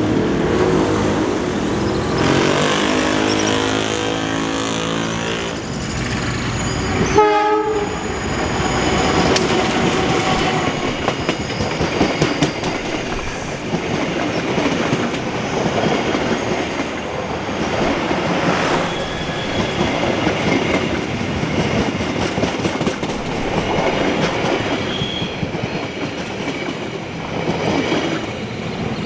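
A diesel-electric locomotive runs past close by with its engine throbbing. A line of passenger coaches then rolls past for about twenty seconds, the wheels clacking unevenly over the rail joints.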